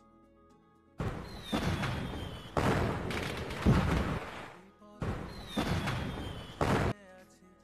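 Firework sound effect played twice over soft background music: each time a falling whistle, then loud bangs and crackling lasting a few seconds.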